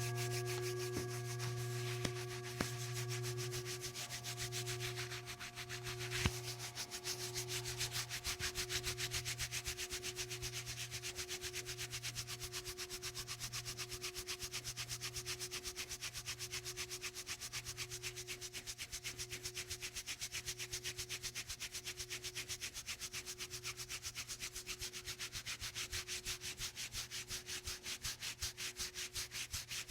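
A motor-driven device running steadily, with a fast even ticking over a hum that pulses about once a second. A few sharp clicks come in the first few seconds.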